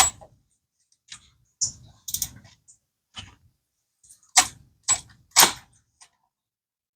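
Hand tools and metal parts clinking and knocking against each other during engine-bay disassembly: about eight sharp, separate clicks at uneven intervals, the loudest at the start and a cluster of three near the end.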